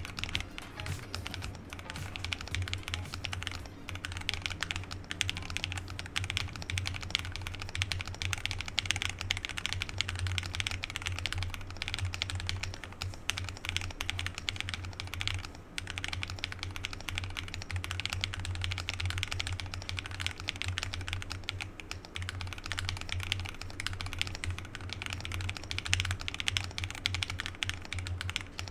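Sound test of a 40% Akko ACR Top 40 custom mechanical keyboard: continuous fast typing, keystroke after keystroke, on KTT Bear and Donut switches with MDA-profile PBT double-shot keycaps in a two-layer acrylic top-mount case. Background music plays underneath.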